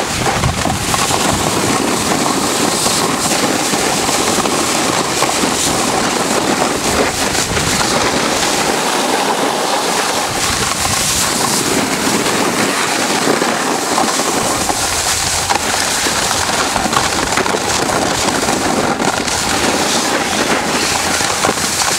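Snowboard edges and base scraping and hissing over hard-packed snow while riding downhill, a steady crackling rush with wind on the microphone.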